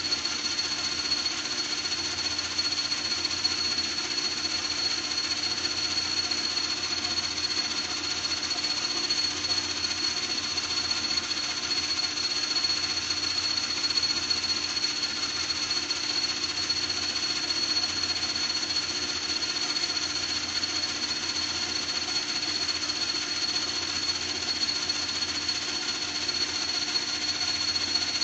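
A small motor running steadily with a high, constant whine and a fast fine rattle, unchanged throughout.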